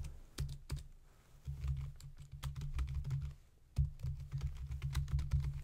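Typing on a computer keyboard: quick, irregular keystrokes in short runs, with a low hum coming and going underneath.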